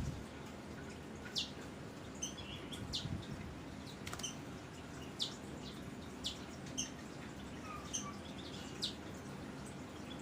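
Birds chirping: about ten short, sharp, high-pitched chirps at irregular intervals.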